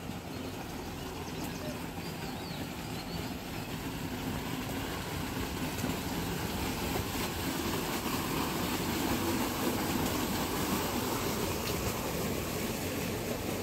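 Steady outdoor rumbling noise with no distinct events, swelling slightly about halfway through.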